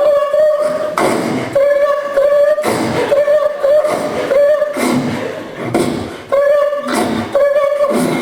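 Sound effects made with the mouth into a microphone: a held humming tone, cut again and again by short noisy mouth bursts, like beatboxing.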